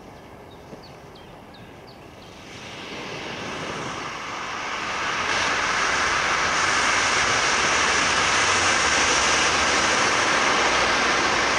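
Potassium nitrate and sugar smoke bomb in a thick-walled 60 mm shell casing burning with a rushing hiss. The hiss starts about two and a half seconds in, builds for a few seconds, then holds steady and loud.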